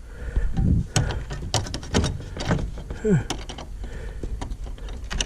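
Scattered clicks and light knocks of small hardware and tools being handled and sorted, with one short falling squeak about three seconds in.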